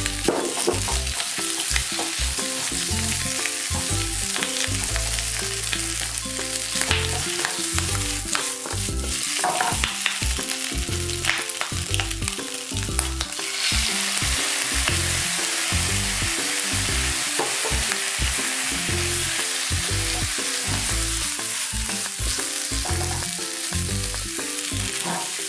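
Food sizzling in a frying pan while being stirred. The sizzle becomes louder and more hissy about halfway through.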